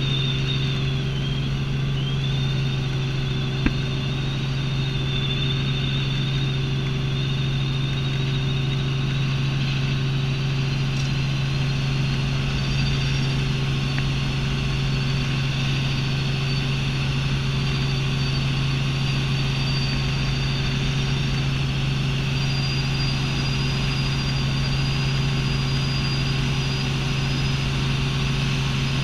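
Light helicopter's engine and rotor heard from inside the cabin in flight: a steady low drone with a thin high whine above it that drifts slightly in pitch. One short click about four seconds in.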